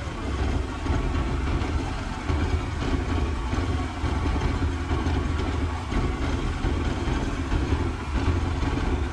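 Small fishing boat's engine running steadily underway, a continuous low rumble with a rushing haze of wind and water over it.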